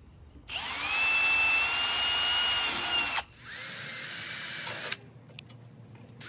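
Cordless drill with a 1/8-inch metal bit pre-drilling screw holes in an aluminum railing post and bracket. It makes one run of about three seconds, its whine rising and then holding steady, then a shorter run of about a second and a half after a brief pause.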